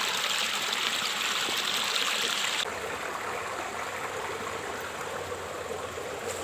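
Stream water running over rocks: a steady rushing hiss that drops suddenly in level about two and a half seconds in.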